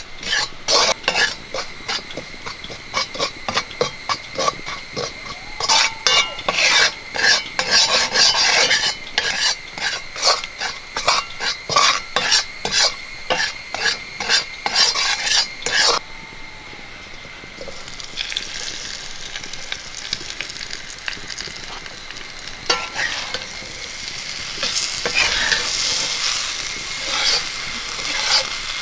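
Steel spatula scraping and stirring dry roasted spice powder around a black iron kadai, in quick repeated scrapes. About halfway through it changes to a softer steady hiss with slower stirring as fried raw mango pieces are mixed through the spiced pan.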